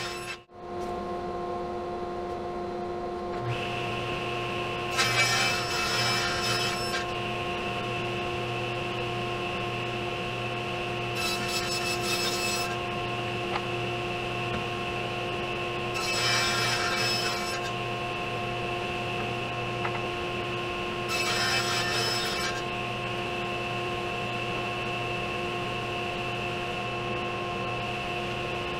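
Portable table saw running with a steady motor whine, cutting 3/4-inch plywood: four passes through the sheet, each about a second and a half long and about five seconds apart, with a louder rasping as the blade goes through the wood.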